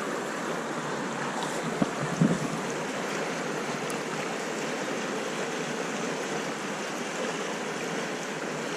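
Steady rush of river current. A couple of short thumps stand out about two seconds in.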